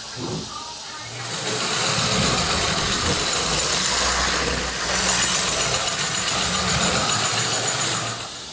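O gauge model train running past close on vintage Hornby tinplate track, a steady rushing rattle of wheels on the rails. It swells about a second in and drops away near the end.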